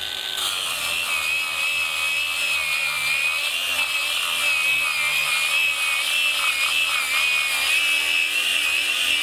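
ToolPRO 18V brushless cordless angle grinder running with a flap disc, sanding wood: a steady high motor whine that wavers slightly in pitch as the disc is worked against the wood.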